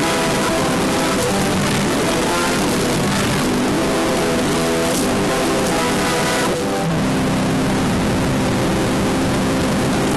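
Heavily distorted, reversed "G Major" style audio edit: a loud wall of hiss with layered, chord-like held tones that change every second or so, briefly dipping about six and a half seconds in.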